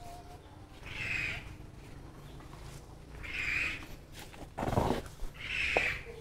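An animal calling three times, short harsh calls about two and a half seconds apart. A brief clatter comes just before the third call.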